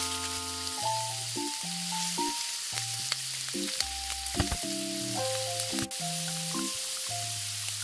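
Food sizzling in a frying pan, a steady hiss with scattered small crackles and pops, cutting in suddenly at the start.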